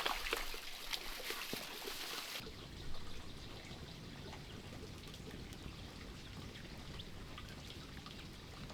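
Water trickling and splashing with small handling clicks. About two and a half seconds in, the sound changes abruptly to a steadier, lower hiss.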